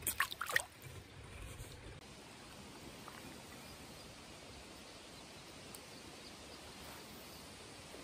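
A small bass dropped back into shallow creek water: a couple of quick splashes in the first half second. After them comes the steady wash of the flowing creek.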